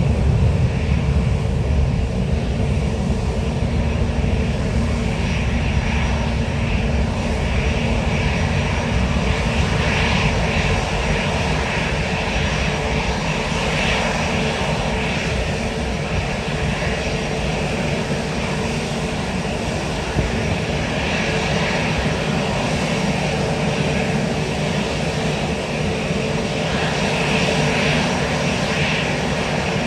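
Jet airliner engines running, a loud steady rumble with a faint steady tone and a hissing upper band that swells and fades every few seconds.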